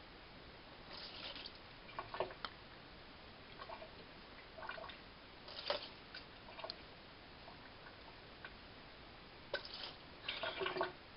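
Faint, scattered drips and small splashes of water in a glass bowl of macaroni, coming a few seconds apart, with a closer run of them near the end.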